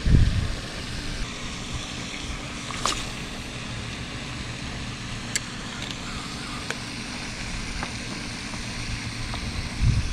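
Steady outdoor rumble and hiss, much like wind across the microphone, with a few faint sharp clicks from handling the rod and spinning reel.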